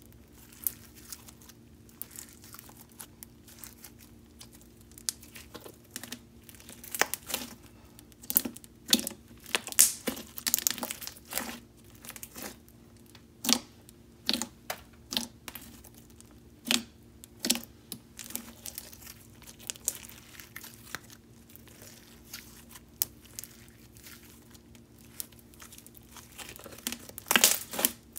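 Thick, glossy, creamy slime being pressed, poked and stretched by hand, giving irregular sticky pops and clicks that come in clusters, the loudest near the end.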